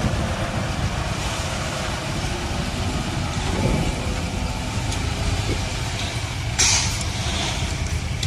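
Steady low engine rumble of a Ford Ranger Raptor pickup's diesel engine as the truck creeps over soft dirt in four-wheel drive high. A short sharp hiss comes about six and a half seconds in.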